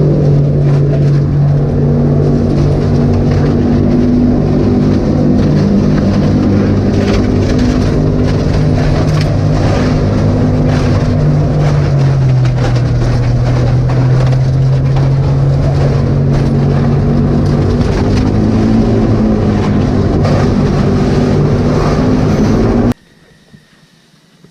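Airboat engine and propeller running steadily while crossing the ice. The pitch drops about halfway through and climbs back a few seconds later, then the sound cuts off abruptly near the end.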